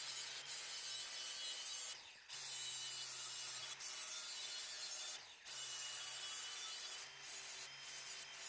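Ryobi angle grinder with an abrasive disc grinding the edge of a sheet-steel patch panel back to a scribe line. It grinds in three passes, broken by brief pauses about two and five seconds in.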